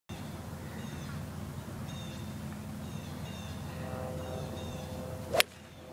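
A golf iron striking the ball on a tee shot: one sharp click about five and a half seconds in, over low steady outdoor noise, with a bird chirping faintly about once a second. The ball was caught off the clubface, by the player's own account.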